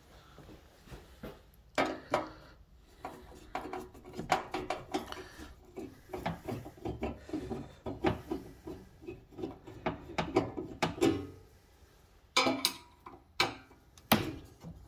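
Robertson square-drive screwdriver backing screws out of a steel electrical panel's cover: a run of rapid scraping ticks as the bit turns, a loose-fitting bit in the screw heads. A few louder sharp knocks come near the end.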